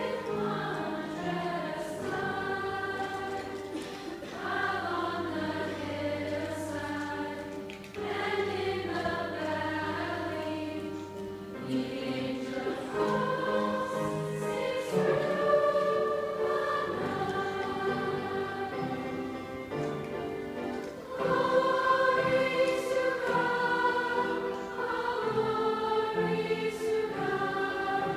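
A large girls' choir singing a Christmas carol in many voices, growing louder about two-thirds of the way through.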